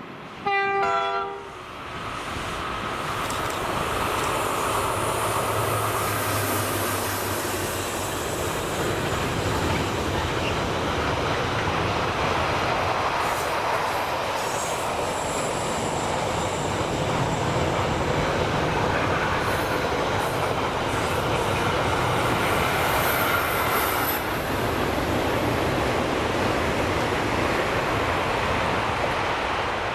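Class 90 electric locomotive gives a short horn blast about half a second in. A long freight train then rolls past with a steady clatter of wheels over the rail joints and occasional high wheel squeal.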